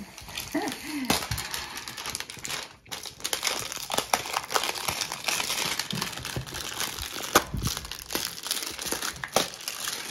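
Toy packaging being unwrapped by hand, crinkling and rustling continuously with sharp crackles.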